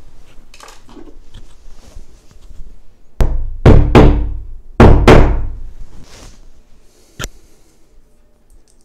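Claw hammer tapping red plastic wall plugs flush into a plasterboard wall: about five hard knocks in two quick groups, followed by a single sharp click.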